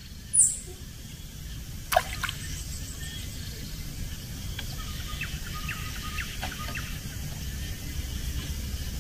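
Riverside ambience with a steady low rumble. A brief high swish comes just after the start and a sharp tick about two seconds in. From about halfway, a small bird gives a run of short chirps.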